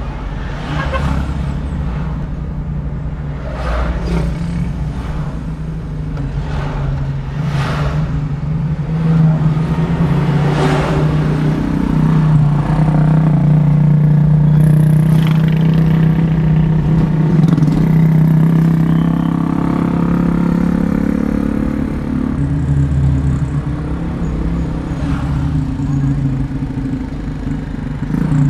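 Car driving in traffic, heard from inside the cabin: a steady engine and road drone that rises slightly in pitch about nine seconds in and holds for about ten seconds. Several brief whooshes come as other vehicles pass in the first half.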